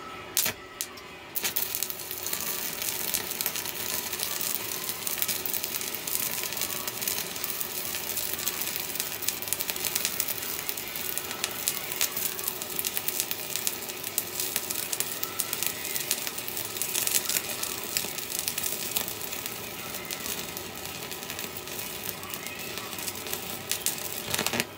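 Stick (shielded metal arc) welding with a 3/32-inch 6013 electrode at 50 amps from an Orange PUMS 140 A inverter welder. After two or three short strikes, the arc catches about a second in and burns with a steady crackle for over twenty seconds, then cuts off abruptly near the end. At this setting the arc is nearly burning through the thin-walled square tube.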